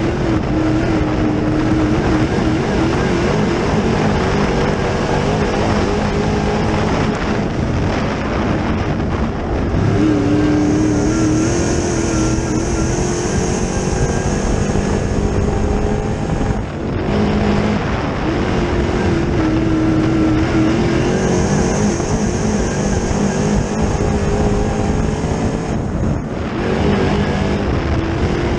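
Dirt late model's 604 crate small-block V8 racing, heard from inside the cockpit over a steady roar of air and track noise. The engine note climbs along the straights and sags through the turns, with two brief throttle lifts in the second half.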